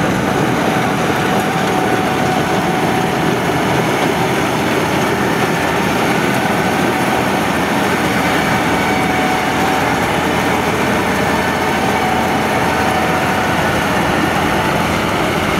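Kubota rice combine harvester running steadily under load as it cuts and threshes rice: a dense, even engine and machinery noise with a thin steady whine over it.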